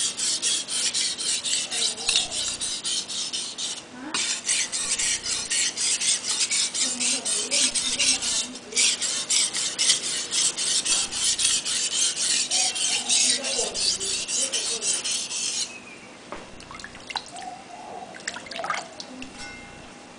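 A kitchen knife blade scraping back and forth on a wet whetstone in quick, even strokes, with two brief pauses. The strokes stop about three-quarters of the way through, leaving only a few light clicks.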